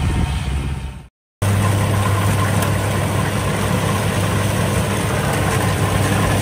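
Engine of rice-harvesting farm machinery running steadily. It drops out abruptly about a second in and, after a short silence, returns as a steady low hum.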